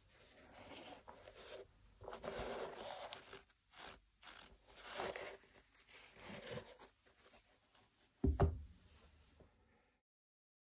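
Handling noise from white-gloved hands turning a corduroy sneaker with a gum rubber sole: soft, irregular rustling and scraping with small clicks, and a single thud about eight seconds in.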